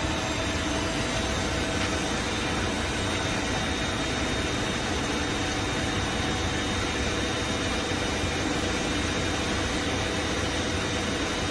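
Takamaz X-15 CNC lathe running a turning program with its spindle at about 1000 rpm: a steady machine hum and hiss with a faint steady high whine.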